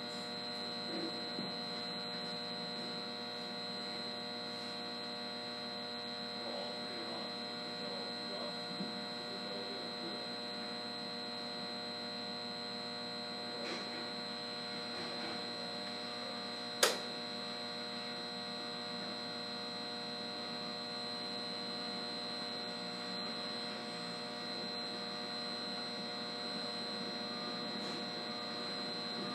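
Steady electrical hum from switchgear and electrical equipment, with several steady higher tones layered over it. One sharp click about 17 seconds in.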